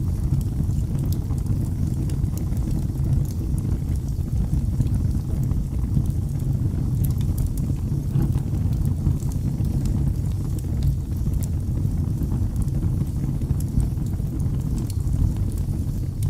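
Wood fire burning in a fireplace: a steady low rumble with scattered faint crackles.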